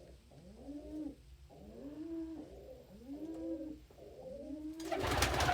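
Pigeons cooing, a repeated rising-and-falling coo about once a second. Near the end comes a short burst of wing flapping as a pigeon takes off.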